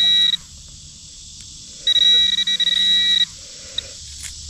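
Metal-detecting pinpointer sounding a steady, high buzzing alert tone as it is held on a buried target. The tone sounds twice: once cutting off just after the start, then again for about a second and a half in the middle.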